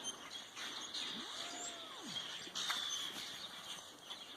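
Birds calling outdoors: short high chirps from small birds, and a lower call that swoops up and back down about a second in.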